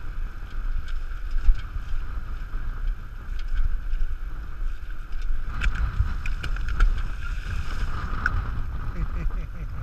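Dog scooter rolling fast over wet beach sand: a steady low rumble of wind on the microphone and wheels on sand, with scattered light clicks and rattles.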